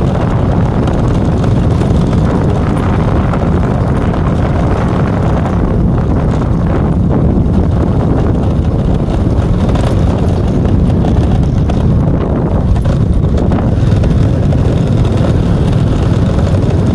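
Steady, loud wind rumble on the microphone with a vehicle running underneath, as when filming while riding in the open.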